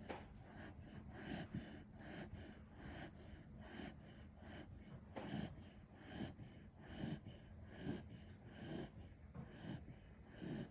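Kishu dog snoring in its sleep: soft, rhythmic snorting breaths repeating about once a second.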